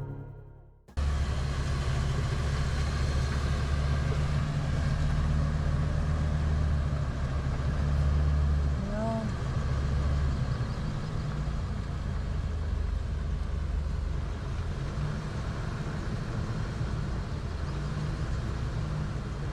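A car driving: steady low engine and road noise.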